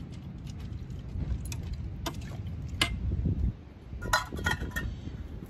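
A utensil clinking and scraping against an Instant Pot's stainless steel inner pot while chicken is stirred in, with a few separate clicks and then a short run of ringing metallic clinks about four seconds in.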